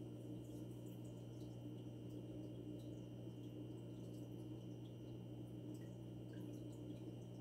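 Aquarium pump humming steadily, with faint scattered drips and ticks of moving water.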